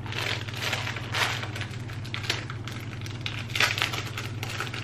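Clear plastic wrapping on a bundle of hair extensions crinkling and rustling in irregular bursts as it is handled and opened, over a steady low hum.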